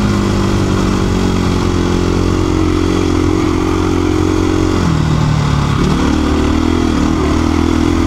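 KTM 350 EXC-F dirt bike's single-cylinder four-stroke engine running steadily under way on a dirt road. About five seconds in the revs drop, then pick back up a second later.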